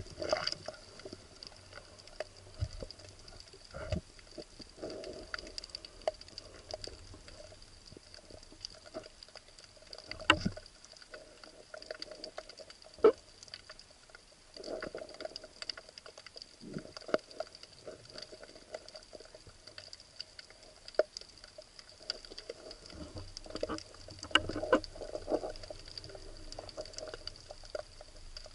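Underwater sound heard through a camera's housing on a diver's speargun: scattered crackling and clicks over a steady faint high whine, with now and then a soft rush of water. Two sharper knocks stand out, about ten and thirteen seconds in.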